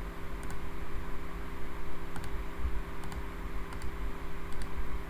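Computer mouse clicking while working through menus and dialog boxes: a handful of short clicks, several in quick pairs, over a steady low hum.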